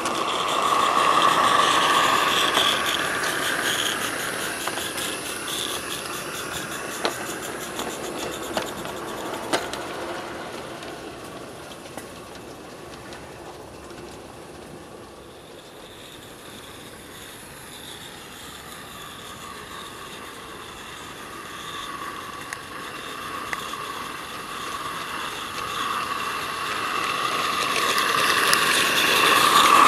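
Small live steam garden-railway train running on its track: the running sound is loud at first and fades as the train moves away. It comes back louder as the Roundhouse Lady Anne live steam locomotive approaches and passes, close by near the end. A few single clicks come through while it is farthest off.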